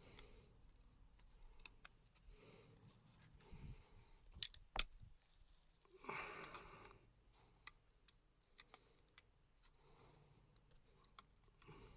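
Quiet handling of a plastic lawnmower primer-bulb housing and its wire clip, worked by hand and screwdriver: a few small clicks, the sharpest two close together a little before the middle, and a short rustle about six seconds in.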